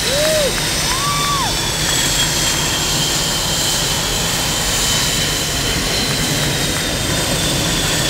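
Blue Angels F/A-18 Hornet jet engines running on the ramp: a loud, steady rush with a high turbine whine that slowly drops in pitch. Near the start, two short tones rise and fall.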